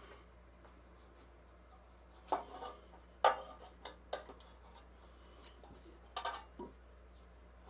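A few light, sharp clicks and knocks of small hard objects being handled, the loudest a little after three seconds in, over a faint steady low hum.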